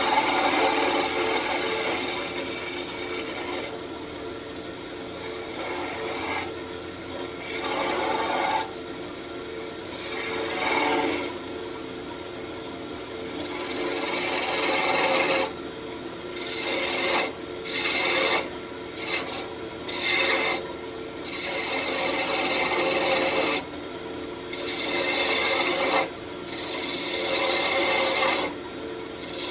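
Wood lathe running while a turning gouge cuts into a spinning walnut blank: the scraping hiss of the cut over the lathe's steady hum, coming and going in short passes in the second half.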